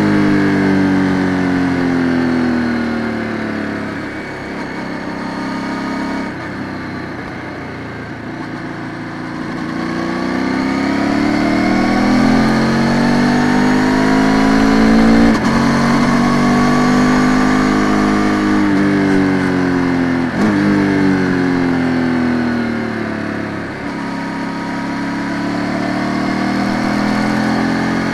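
Ducati Multistrada 950 S's Testastretta twin-cylinder engine under way, its pitch falling as the rider rolls off for bends and rising again under throttle. There are a couple of quick gear changes past the middle, where the pitch jumps.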